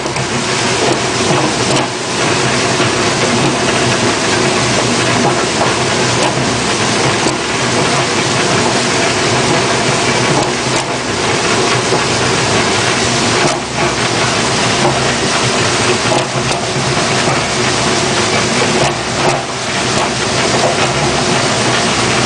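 A potato washing-and-peeling machine running steadily: a continuous mechanical hum under a dense hiss and clatter of the washing drum working.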